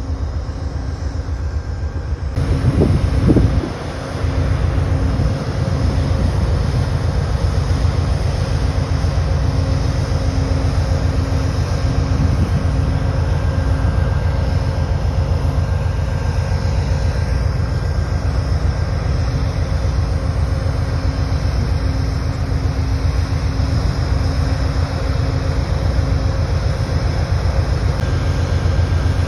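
Amtrak diesel passenger locomotive running with a steady low drone and hum. There is a brief louder rumble about three seconds in.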